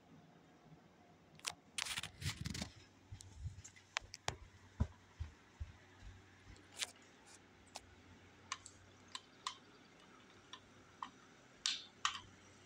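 A run of sharp clicks and knocks: a dense cluster about two seconds in, then single clicks every second or so and a short double burst near the end, over a faint low hum.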